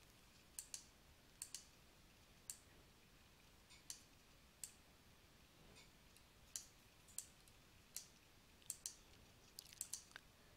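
Computer mouse clicking: faint, sharp single clicks at irregular intervals, with a quick run of several clicks near the end.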